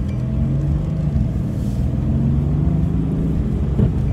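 Mercedes-AMG GT S's twin-turbo V8 heard from inside the cabin while driving, a steady low drone whose pitch rises a little about half a second in and then eases off.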